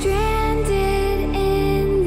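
Slow, gentle background music: a sustained melody line that glides between notes over a steady low drone.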